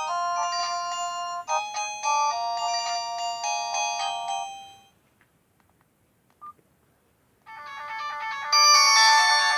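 Nokia 108 mobile phone playing its built-in ringtones. One melody fades out about halfway through, then comes a short pause with a faint click. The next ringtone starts near the end, quiet at first and then louder.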